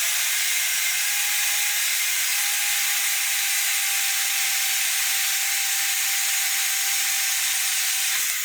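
WEN 94396 portable metal-cutting bandsaw running, its blade sawing steadily through a nearly 1-inch-thick metal pin. Even, hissing cutting noise with a faint steady whine underneath, stopping right at the end.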